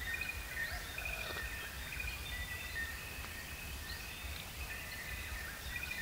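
Forest campsite ambience: many high chirping calls repeating and overlapping, with a steady low rumble underneath.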